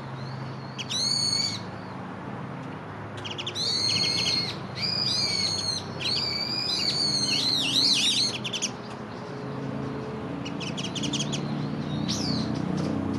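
Wild songbirds calling with a string of loud, harsh, buzzy calls, bunched through the first eight or nine seconds and a few more near the end, over a low steady hum.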